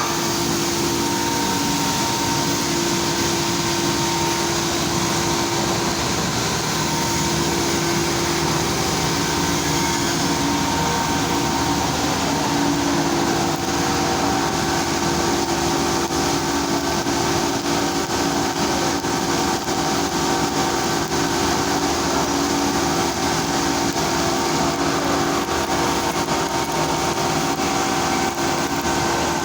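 Steady machinery noise: a continuous hum with a few steady tones over a hiss, unbroken throughout.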